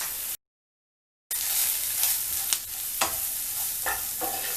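Chopped vegetables sizzling in hot oil in a pan as they are stir-fried, with a spatula scraping and knocking against the pan a few times. The sound cuts out completely for about a second near the start.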